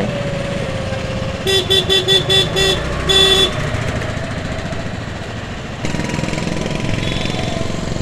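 A vehicle horn honked in about six quick beeps, then one longer beep, over steady road traffic and engine noise.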